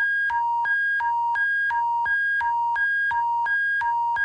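Emergency-alert attention tone: two high electronic beeps alternating evenly, about three switches a second, over a steady low hum.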